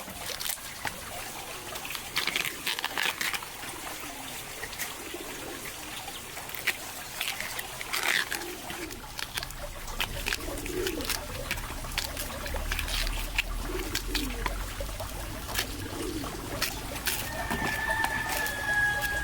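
Farmyard sounds: chickens giving short low calls among scattered clicks and knocks, with a faint trickle of water. Near the end comes one drawn-out, steady high call.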